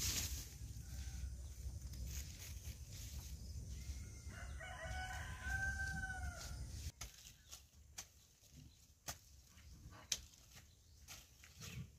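A rooster crows once, one long call of about two seconds in the middle, over a low rumble that stops abruptly about seven seconds in. After that come a few sharp knocks about a second apart, as a hand hoe strikes the soil.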